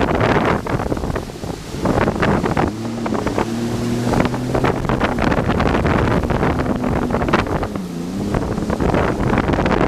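Jet ski engine running on the water, its pitch rising and falling as the throttle changes, with heavy wind buffeting the microphone.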